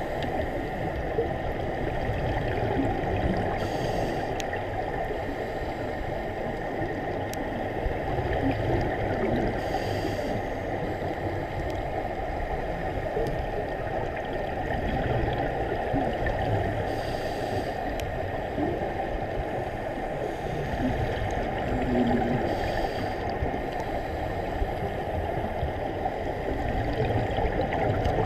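Underwater sound of scuba divers' exhaled regulator bubbles gurgling over a steady muffled rush of water, with a brief hiss of bubbles about every six seconds.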